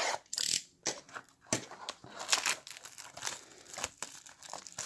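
Plastic shrink wrap being cut and peeled off a trading card box: a scrape of the blade at first, then irregular crinkling and sharp crackles of the film.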